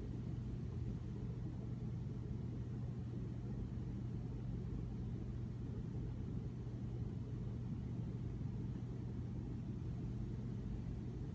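Steady low hum and rumble of room background noise, unchanging throughout.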